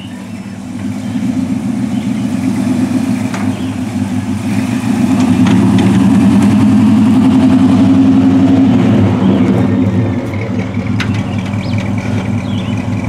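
Lifted square-body pickup truck's engine running as it pulls a flat-bottom boat on its trailer up from the riverbank and drives past, a steady low note growing louder toward the middle and then easing off.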